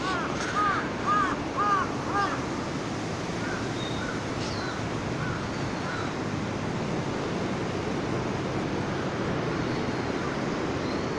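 A crow cawing in a quick series of short calls during the first two seconds or so, with a few fainter calls a few seconds in, over a steady background rush.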